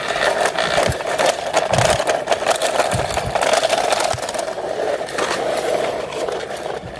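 Toy truck pushed along by hand, its wheels rolling with a steady, fast rattle.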